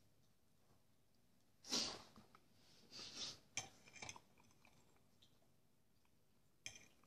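A person chewing quietly through a mouthful of fried sausage and porridge, with a loud breath about two seconds in. A metal fork clinks against the plate twice around the middle and once more near the end as it scoops food.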